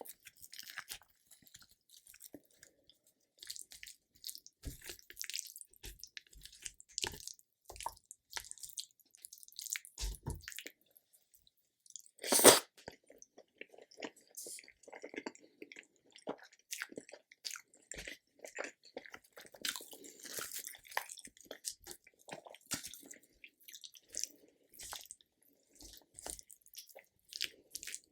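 Close-miked chewing and biting of food: irregular wet, crackly mouth sounds with small crunches, and one much louder crunch about twelve seconds in.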